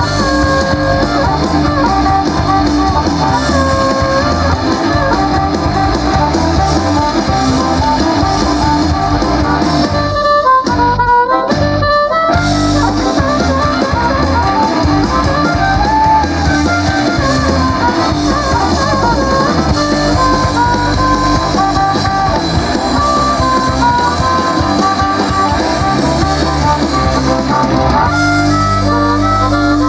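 Live rock band playing a boogie-woogie blues-rock number, a harmonica playing lead over electric guitars and a drum kit. About ten seconds in the backing briefly drops away while the harmonica carries on, then the full band comes back in.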